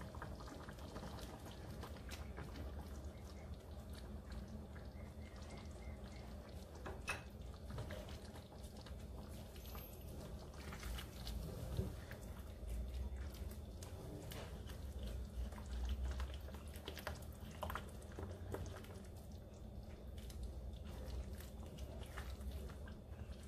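Thick creamy sauce stirred in a stainless skillet with a silicone spatula: soft wet squelching and simmering, with scattered light clicks and scrapes of the spatula on the pan. A low steady hum sits underneath.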